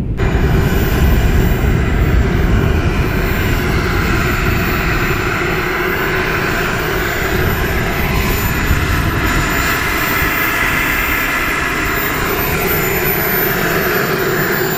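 Kingtech K85 G4 model jet turbine running steadily at taxi power: a rushing exhaust with a thin, high, steady whine over a low rumble.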